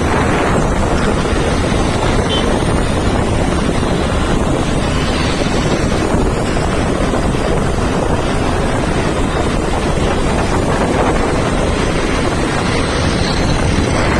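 Loud, steady wind noise buffeting the microphone, a dense low rumble with no distinct events.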